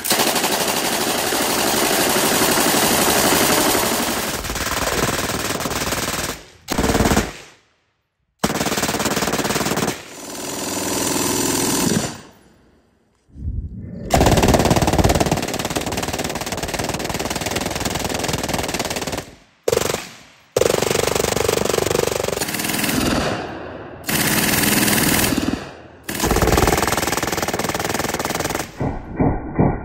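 MG-42-pattern machine guns firing long full-automatic bursts of 7.92×57mm (8 mm Mauser) rounds at a very high rate of fire. The bursts come in several separate stretches, cut off abruptly by brief silent gaps between them.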